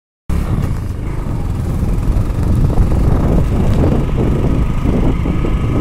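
A moving road vehicle running along a road: a steady low rumble of engine and road noise, starting abruptly a moment in.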